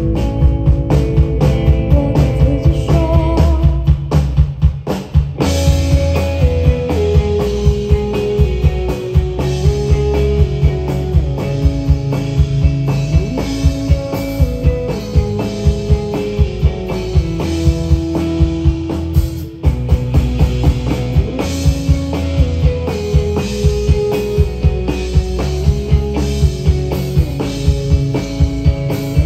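Live rock band playing through a PA: electric guitars, bass and a drum kit with a steady beat. The music briefly thins out about five seconds in, then the full band comes back in.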